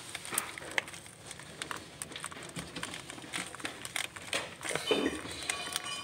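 Light plastic clicks and glove crinkling as a fuel injector's wiring connector is pressed at its release tab and worked loose by hand.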